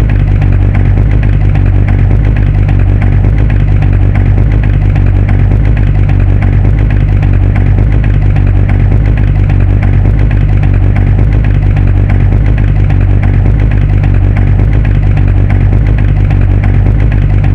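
Muscle car V8 engine idling steadily with a deep, even, loping exhaust note.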